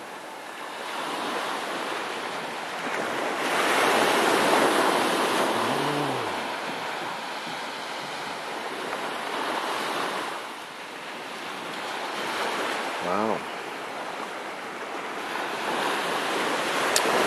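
Surf breaking on a sand beach, a steady wash that swells and ebbs every several seconds, with a couple of brief distant voices.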